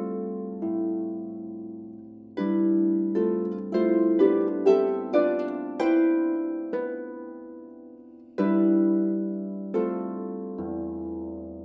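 34-string lever harp playing a slow, reflective piece: plucked chords left to ring and die away, a quicker run of notes in the middle, then more ringing chords and a low bass note near the end.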